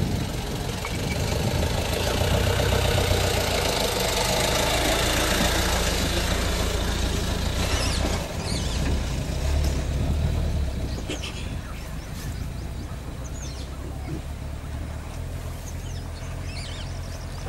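Idling vehicle engine with a steady low rumble under water sloshing as elephants wade through a flooded stream, the whole getting quieter about ten seconds in. A few short high chirps come in the second half.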